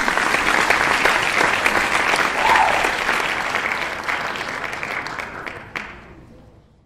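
Applause: a dense clatter of clapping that fades out over the last couple of seconds.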